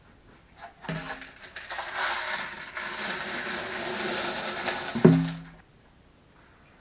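Wet aquarium gravel and small stones poured and shaken from a sieve into a glass tank, a rattling, crunching pour for about four seconds. It ends about five seconds in with a loud knock that rings briefly.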